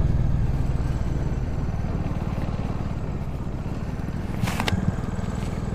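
Bajaj Dominar 400's single-cylinder engine running at low revs with an even low pulsing, growing slowly quieter as the motorcycle slows on the road. A brief rustle comes about four and a half seconds in.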